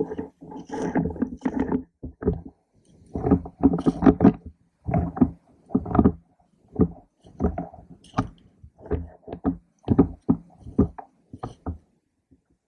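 Irregular knocks and rubbing on a gun-mounted camera, about one or two a second, dying away near the end: handling and movement noise of an airsoft rifle carried in play.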